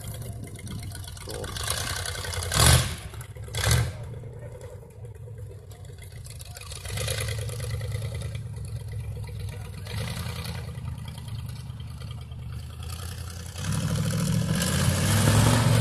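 Modified Chevy Geo Tracker off-roader's engine running, with two brief loud bursts about three and four seconds in. The engine gets louder near the end.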